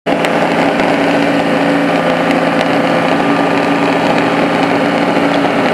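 Car engine idling steadily at an even, unchanging pitch.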